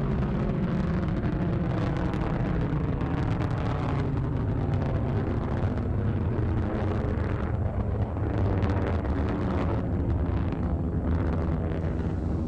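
Blue Origin New Shepard rocket's single BE-3 hydrogen-fuelled engine rumbling steadily as the booster climbs, a continuous deep noise with a crackling edge.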